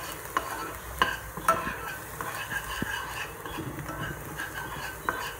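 A metal eating spoon stirring minced garlic frying in oil in a non-stick frying pan, scraping and tapping against the pan. There are a few sharper clicks about one and one-and-a-half seconds in, over a faint sizzle.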